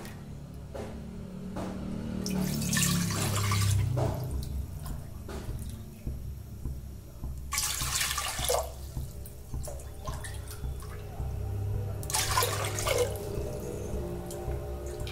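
Cupfuls of water poured into an empty aluminium pressure cooker: three separate pours, each lasting about a second, a few seconds apart.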